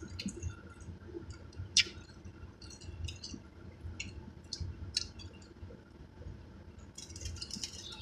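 Close-up chewing of fried boneless chicken wings, with wet lip smacks and scattered mouth clicks, the sharpest about two seconds in. A denser run of crackling clicks starts near the end.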